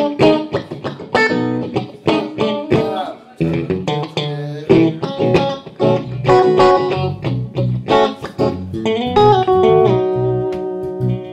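Live blues-rock duo of electric guitar and electric bass: the electric guitar plays a picked lead line of quick notes, the bass guitar comes in strongly about three and a half seconds in, and the guitar holds a long note near the end.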